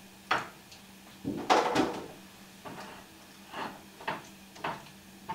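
A spoon stirring rice in a skillet, scraping and knocking against the pan in about eight short, irregular strokes, with a louder cluster about a second and a half in. The rice is being kept moving while it heats so it doesn't stick to the pan.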